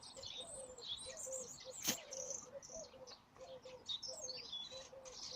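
Birds chirping and calling, with one sharp click about two seconds in.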